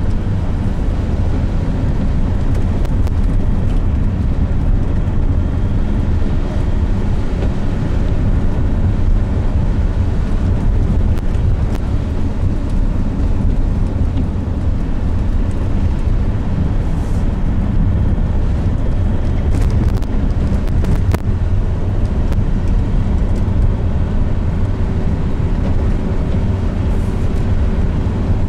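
Steady engine and road noise of a car driving at a constant speed on a flat road, heard from inside the car, with some wind noise.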